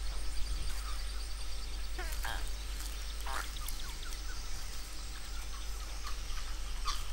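Tropical forest ambience: a steady high insect drone with scattered short animal calls, the clearest a quick falling call about two seconds in and another shortly after three seconds.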